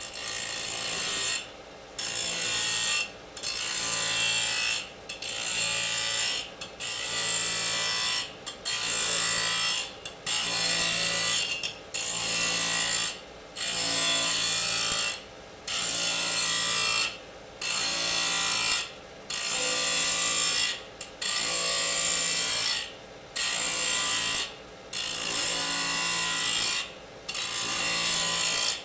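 Disk saw blade cutting aluminium in repeated short cuts, each a loud, hissing screech of about a second to a second and a half, separated by brief pauses, about fifteen cuts in a steady rhythm.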